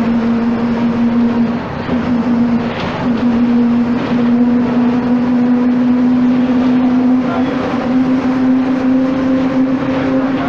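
Marcopolo Torino bus on a Volksbus 17.230 EOD chassis running, its engine and drivetrain giving a steady whine that edges slightly higher in pitch about eight seconds in.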